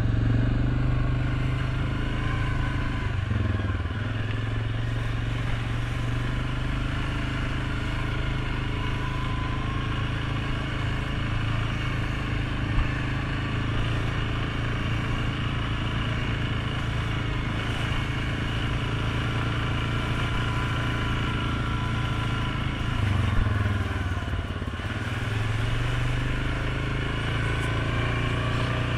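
Suzuki KingQuad 750 ATV's single-cylinder engine running at a steady trail cruise. The engine eases off briefly about three seconds in and again a few seconds before the end, then picks back up. There is one short knock near the middle.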